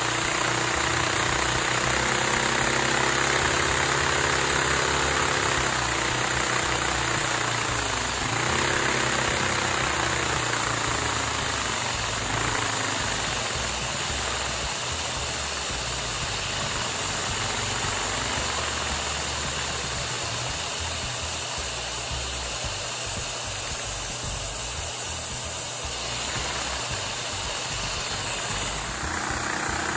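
Cross-plane inline-four LEGO vacuum engine running on a vacuum cleaner's suction: the steady rushing hiss of the vacuum motor over the light clatter of the plastic pistons and crank. The running pitch sags and picks up again a couple of times in the first third.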